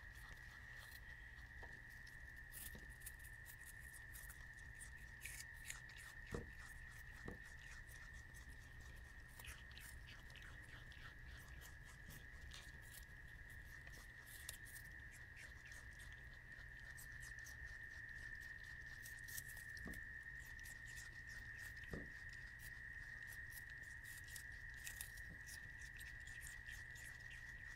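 Common brushtail possums chewing chunks of apple, heard as faint, irregular crisp crunching clicks, over a steady high-pitched whine and a low hum.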